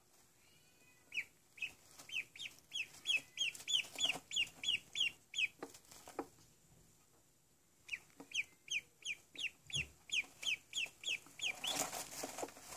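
Duckling peeping: two runs of short, high, downward-sliding peeps, about three a second, with a pause of about two seconds between them. Rustling in wood shavings near the end.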